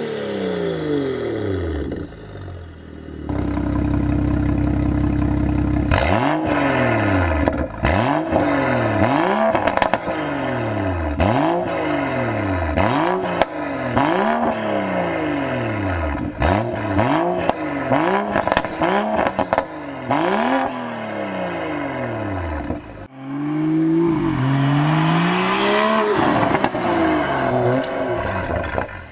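BMW N55 3.0-litre turbocharged straight-six, with aftermarket exhaust, held steady for a few seconds and then blipped in a string of quick revs, about one every second and a half. Each rev rises and falls, with pops and crackles as it drops off. A longer rev comes near the end.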